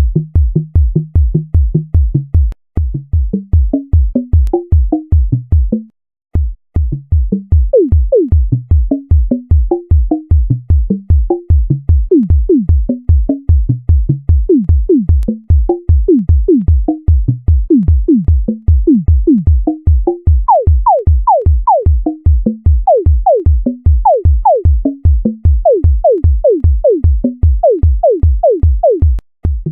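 Sonification of the Introsort sorting algorithm, heard as synthesized electronic music: a steady low beat about four times a second under short, falling synthetic tones. The sound cuts out for about half a second some six seconds in, then resumes.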